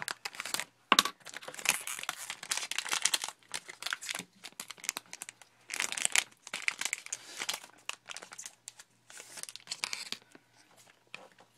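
Trading-card pack wrappers being crinkled and torn open, and cards handled, in irregular crackling bursts, with a sharp click about a second in; the handling gets quieter near the end.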